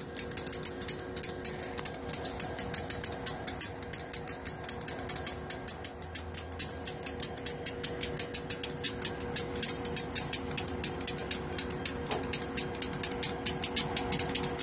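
Railroad crossing warning bell ringing steadily with rapid, even strikes, about five or six a second, over a faint steady ringing tone.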